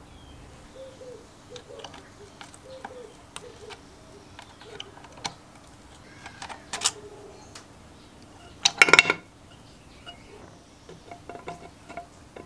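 Small metal engine parts clicking and clinking as they are handled and lifted out of an open engine crankcase, with a louder burst of metal clatter about nine seconds in.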